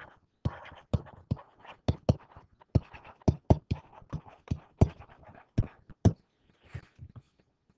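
Stylus tapping and scratching on a writing surface as words are handwritten: a run of sharp, irregular ticks, about three a second, turning fainter near the end.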